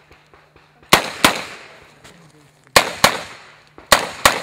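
Handgun fired six times as three quick double taps. The two shots of each pair are about a third of a second apart, the pairs a second or more apart, and each shot rings on briefly.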